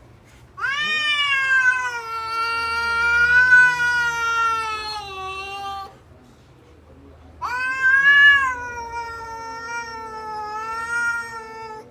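A cat yowling, nagging in two long drawn-out calls of about five seconds each, with a short pause between.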